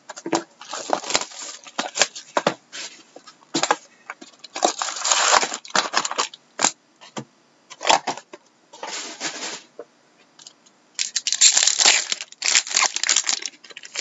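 Trading card box and packs being handled: cardboard and wrapper crinkling in bursts, ending with a card pack wrapper tearing open, the loudest stretch near the end.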